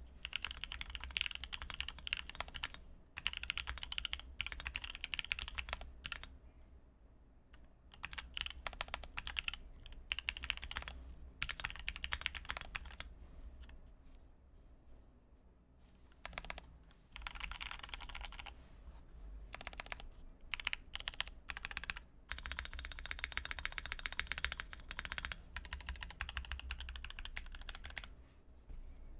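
Typing on a Bakeneko65 mechanical keyboard with lubed Gateron Milky Yellow linear switches and PBT keycaps: fast runs of keystrokes lasting several seconds, broken by short pauses, with a few single key presses in between.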